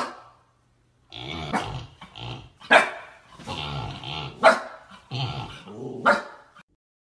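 Husky barking and vocalizing in a string of short bursts, with about four sharper, louder barks among them.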